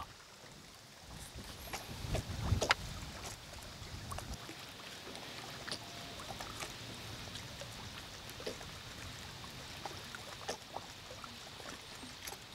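Water lapping quietly around a small boat, with scattered small clicks and a louder knock about two and a half seconds in.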